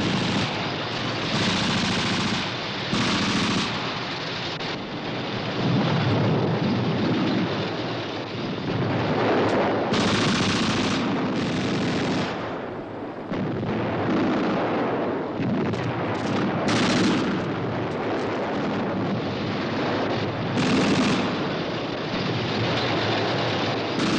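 Staged battle gunfire: machine-gun and rifle fire going on almost without a break, with louder bursts several times.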